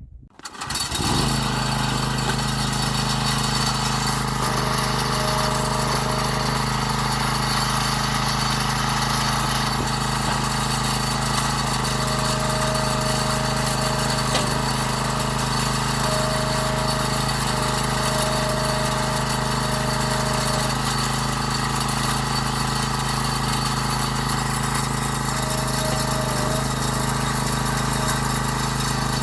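Gas-engine log splitter running steadily. A higher whine comes and goes every few seconds over the engine.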